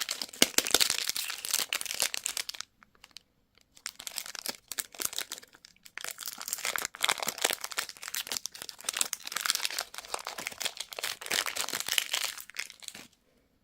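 Plastic candy wrapper crinkling and crackling as it is handled and unwrapped, in a short burst and then a longer stretch that stops suddenly near the end.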